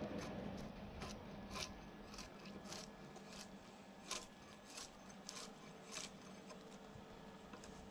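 Light clicks and scrapes of wooden slabs and a hooked hand tool being handled, about one short click every second or less, over a faint steady hum.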